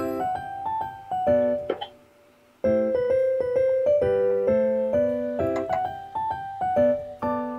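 Light background piano music, a melody of single held notes, that stops briefly about two seconds in and then resumes.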